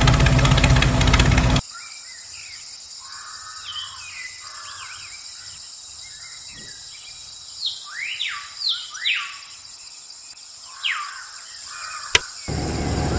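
Small DC hobby motor on a toy tractor running with a steady whir, then cutting off abruptly about a second and a half in. Birds chirp with quick sweeping calls through the quiet stretch. Near the end a sharp click, and the motor starts running again.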